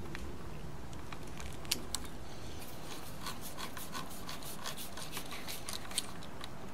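Small clicks and rubbing of a wire being handled and fastened to a three-way light switch's terminal, over a steady hiss. Two sharper clicks come a little under two seconds in and another near the end.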